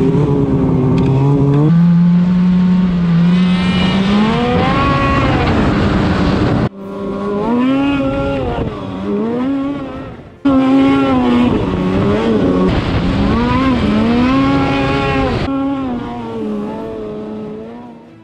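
Snowmobile engine revving hard, its pitch rising and falling again and again as the throttle is worked on the climb. The sound cuts off abruptly twice, about seven and ten seconds in, and fades near the end.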